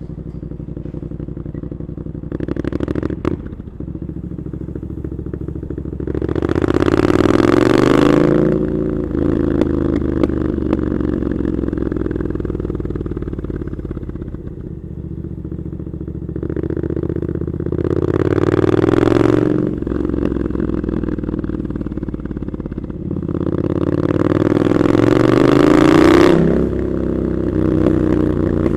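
Triumph Scrambler 900's parallel-twin engine through Arrow exhaust pipes, running at low revs, then accelerating three times, about six seconds in, around seventeen seconds and again about twenty-three seconds in, its pitch rising each time before dropping back. A short clatter about three seconds in.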